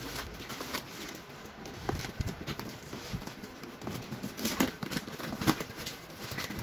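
Cardboard box flaps being pulled open and folded back by hand: irregular rustling, creaking and crackling of the cardboard, loudest about five seconds in.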